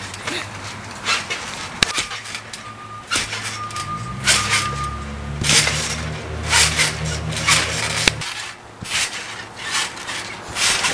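Trampoline springs and mat creaking and rasping with each bounce, in a repeating rhythm of about one to two bounces a second. A low steady hum runs underneath from about four to eight seconds in.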